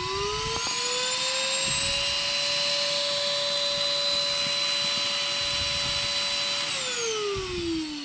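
SilverCrest SHAZ 22.2 C3 cordless stick vacuum's motor, used as a handheld, finishing its spin-up with a rising whine over the rush of air. It runs steady for several seconds, then is switched off near the end and winds down with a falling whine.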